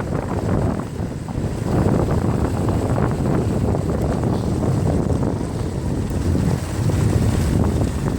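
Wind buffeting the microphone over the low rumble of a moving ATV.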